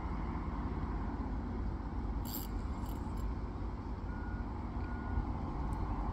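Steady low rumble of wind buffeting the microphone, with a brief high hiss about two seconds in.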